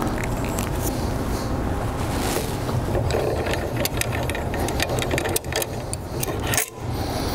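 Steady mechanical running noise with scattered light clicks. It dips briefly near the end.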